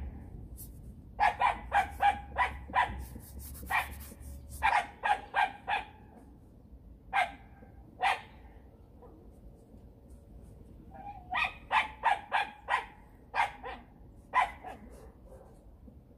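A dog barking repeatedly in quick runs of several barks, with pauses of a second or more between runs.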